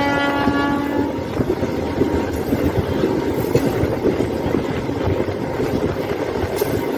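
Passenger train running along the track, heard from aboard. A steady horn note sounds and stops about a second in, under the rumble and irregular clatter of the wheels on the rails.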